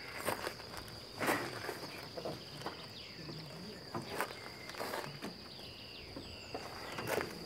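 Several spaced footsteps over a steady high-pitched tone.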